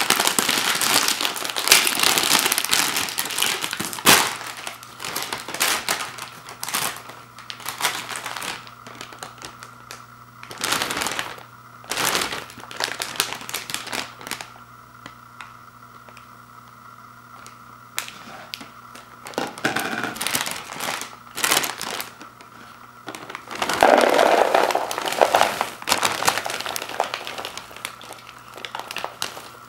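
A foil snack bag crinkling loudly as it is torn open by hand, then rustling in short spells. Near the end comes a heavier rush of rustling as popcorn is poured from the bag into a plastic bowl.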